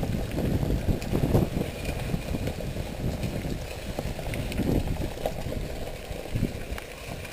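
SUV engine running at low speed as it tows a heavy old wooden caravan, with an uneven low rumble.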